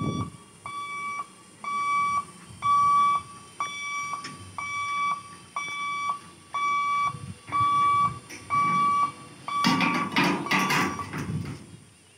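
Electric level-crossing warning hooter beeping steadily about twice a second while the boom barriers lower. Near the end a louder burst of noise covers the beeping for about two seconds.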